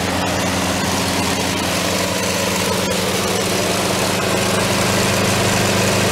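Three walk-behind lawn mowers running together: two Snapper P216012s with 7 HP Briggs & Stratton overhead-valve engines and a Toro Personal Pace with a 6.75 HP Briggs & Stratton engine, making a steady engine hum that gets slightly louder about four seconds in.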